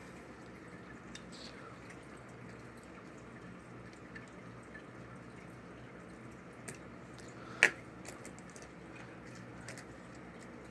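Quiet steady room hum with a few faint scattered ticks and one sharp click about two-thirds of the way through.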